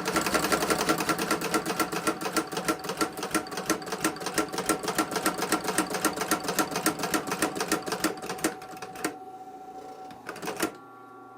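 Industrial walking-foot leather sewing machine running empty, unthreaded and with no leather under the foot, making a rapid, even clatter of needle strokes. It stops about nine seconds in, and one more knock comes near the end.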